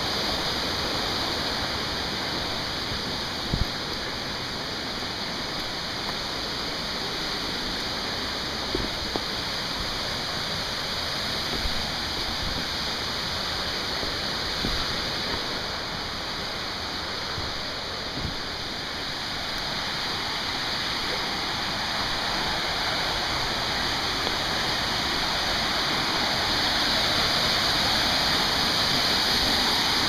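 Steady rushing of a waterfall, growing somewhat louder in the second half, with a few faint knocks scattered through it.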